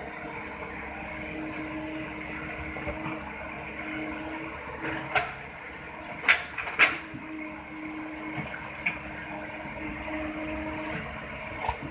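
Toy excavator and toy truck being played with: a steady whirr under a low hum that switches on and off several times, with three sharp clacks about halfway through.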